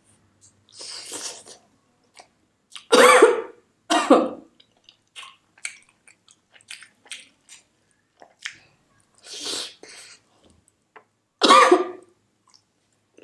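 A woman coughing while eating spicy chicken: two loud coughs about a second apart a few seconds in and another near the end, with breathy exhales and small wet chewing clicks between them.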